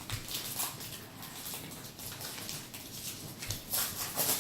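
Irregular rustling and crinkling of baseball card packs and cards being handled: a string of short, uneven crackles and flicks.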